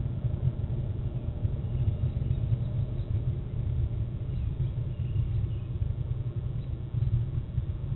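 Steady low rumble of outdoor background noise, with a few faint high chirps here and there.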